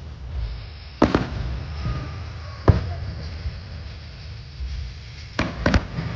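Aerial fireworks bursting over a harbour: sharp bangs with echoing rumble, a double bang about a second in, another near the middle, and a quick cluster of bangs near the end.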